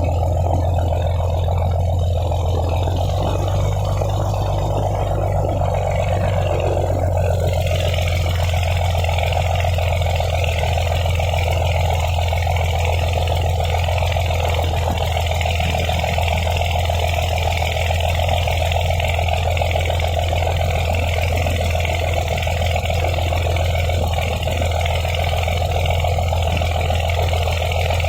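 A boat's engine running steadily with a deep, constant hum; about seven seconds in a broad rushing hiss of water or wind grows louder over it.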